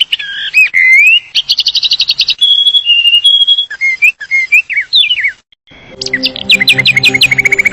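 A songbird singing a varied song of high whistled phrases: swooping notes, fast trills and short held whistles. About six seconds in, after a brief pause, soft background music with low sustained notes comes in under the birdsong.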